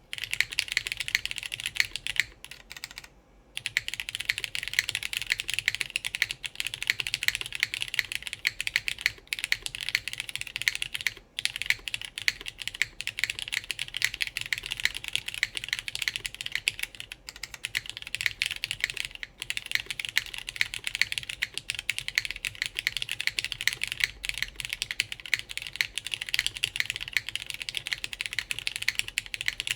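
Fast, continuous typing on a JJW Integral mechanical keyboard with lubed Cherry MX Black linear switches, GMK keycaps and no plate, only a PCB. The keystrokes run on without a break except for a short pause about three seconds in and a brief one about eleven seconds in.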